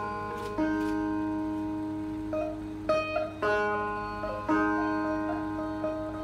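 A sape, the Bornean boat-shaped lute, played solo: a slow melody of single plucked notes about a second apart, each ringing out and fading slowly over a sustained lower note.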